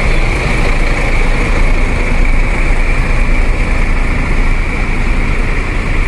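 Idling diesel engines of queued intercity buses: a steady, loud low rumble with a constant high hiss over it.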